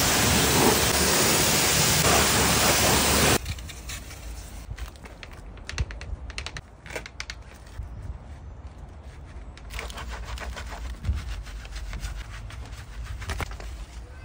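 Pressure washer spraying a loud, steady hiss of water that cuts off suddenly about three seconds in. After that, quieter irregular scratching of a brush scrubbing a foamed alloy wheel.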